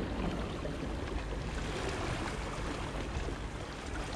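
Small sea waves washing and splashing steadily against the rocks.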